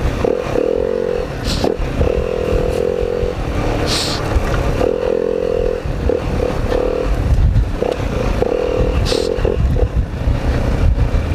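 Dirt bike engine being ridden along a trail, revving up and down in short bursts as the throttle opens and closes, over a heavy low rumble. Three short scraping hisses cut in along the way.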